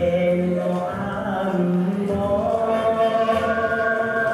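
Music with voices singing long, held notes in a choir-like chant, several pitches layered at once.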